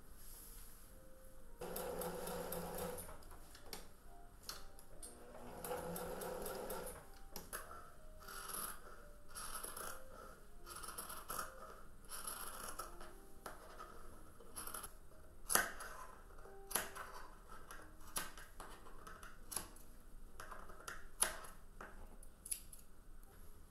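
Scissors snipping through layered cotton fabric in a long run of short cuts, trimming the seam allowance around a sewn heart and clipping notches into its curves. In the first seven seconds there are two steady sounds of about a second each.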